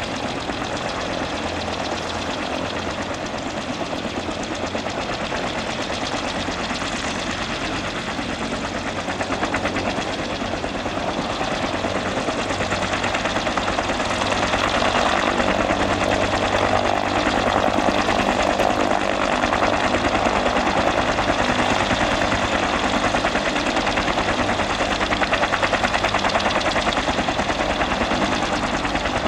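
Fuji-Bell 204B-2 helicopter's single turboshaft engine running during start-up, with its two-bladed main rotor turning and making a fast, even thumping. The sound grows louder about halfway through as the rotor speeds up.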